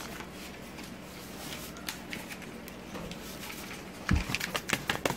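Cheese-powder packets rustling as they are shaken out over macaroni in a steel pot, with a thump about four seconds in and then a quick run of taps and clicks.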